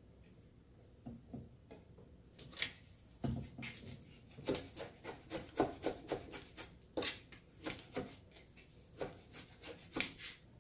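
Chef's knife chopping fresh cilantro and parsley on a plastic cutting board: a few scattered sharp taps, then a quick run of knife strikes about three a second.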